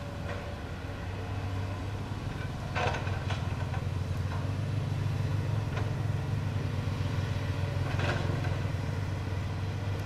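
Komatsu PC200 hydraulic excavator's diesel engine running with a steady low rumble that grows louder about two to three seconds in as it works. Two sharp clanks from the working gear come about three seconds in and again near the end.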